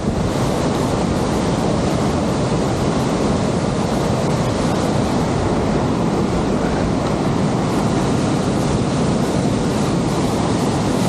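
Waterfall in spate after days of heavy rain: a loud, steady rush of falling water, deepest in the low and middle range.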